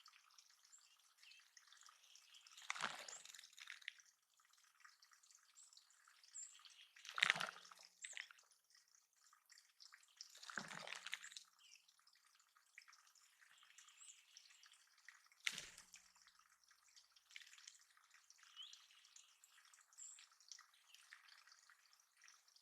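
Water dripping and splashing into a small backyard bird pond: four separate splashy drops a few seconds apart over a faint background hiss.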